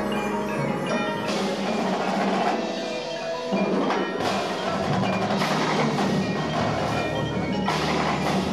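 Indoor marching percussion ensemble playing: marimbas and other mallet keyboards sound ringing pitched notes over marching drums.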